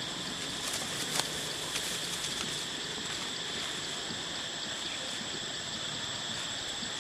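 Steady outdoor insect drone: an even, high-pitched buzz that holds unchanged throughout, with a couple of faint ticks about a second in.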